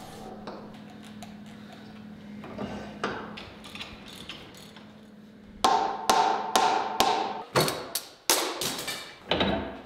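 Faint clicks over a low hum, then from a little past halfway a run of sharp, ringing metal knocks, about two a second, on steel parts during reassembly of a power hammer.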